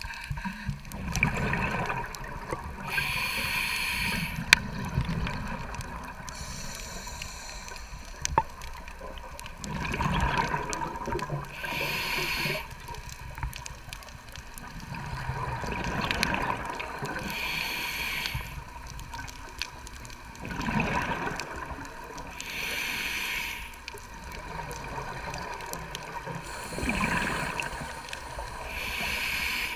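Scuba diver breathing through a regulator, heard underwater: about five breath cycles, each a burst of exhaled bubbles followed by the hiss of the next inhale.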